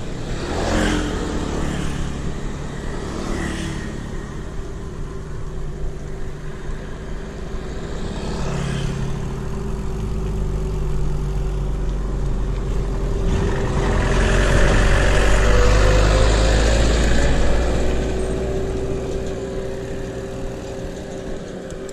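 Wind buffeting an action camera's microphone while riding a mountain bike, with the steady hum of knobby tyres rolling on asphalt. It swells to its loudest a little past halfway, then eases off.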